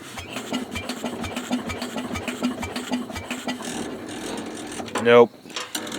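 Electric starter cranking a small engine for about five seconds without it catching, the battery too weak to start it.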